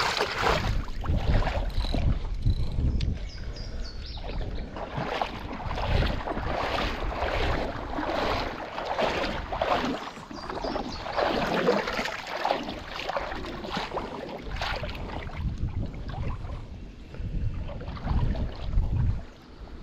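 Water sloshing and splashing around a kayak, with wind buffeting the microphone.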